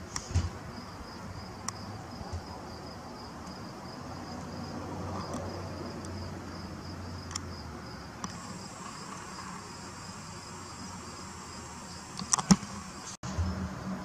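A steady, high-pitched insect trill pulsing evenly throughout, with a few sharp clicks; a quick cluster of louder clicks near the end.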